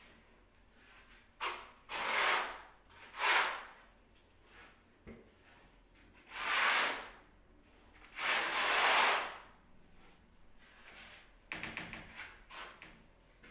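A trowel scraping across the wall as tile adhesive is spread: about five separate strokes, each half a second to a second long, then a run of quick short scrapes near the end.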